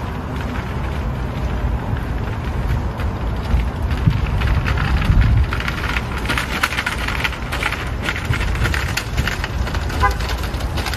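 Plastic shopping cart rolling over asphalt, its wheels rattling in a dense crackle that is loudest in the second half, over a low rumble.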